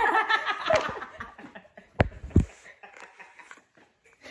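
A person's laughter trailing off, then two sharp knocks about half a second apart.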